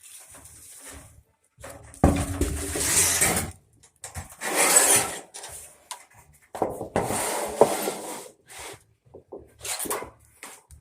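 A run of rough scraping strokes, four or five of them, each lasting a second or so with short gaps between.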